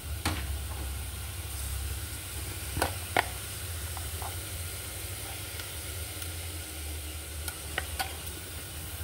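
Grated coconut sizzling faintly in a hot nonstick frying pan, over a steady low hum, with a few short clicks and taps as sugar and salt are shaken in from a paper packet.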